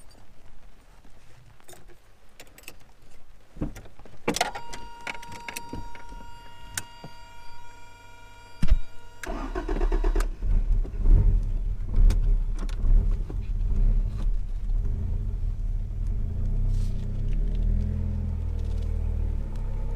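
Toyota AW11 MR2 engine cranked by the starter and catching about nine seconds in, then running and pulling away slowly, its low rumble swelling and easing. Before the start, a steady high whine lasts about five seconds.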